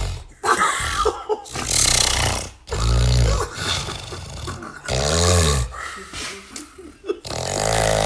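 A man snoring very loudly, like a log being sawn: a series of rasping, rattling snores, about one every two seconds.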